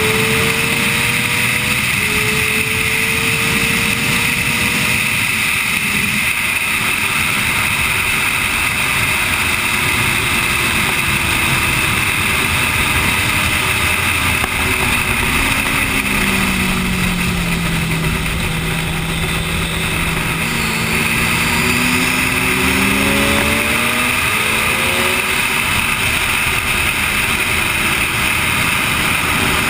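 Sportbike engine running hard at speed, heard from the bike itself under heavy wind rush. The engine pitch rises in short climbs, drops and holds lower a little past the middle, then climbs again as the revs build.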